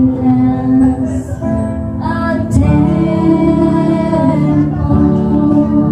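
A live praise-and-worship song: female vocalists singing long held notes into microphones over keyboard accompaniment, with a fuller chord coming in about halfway through.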